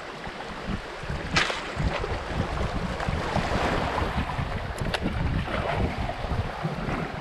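Shallow river water rushing and rippling around a moving canoe, with gusty wind rumbling on the microphone. There are two sharp clicks, about a second and a half in and again about five seconds in.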